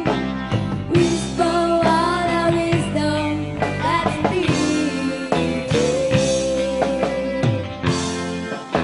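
Live rock band playing: electric guitar, bass guitar and drum kit, with a woman singing into a microphone. A long note is held in the second half.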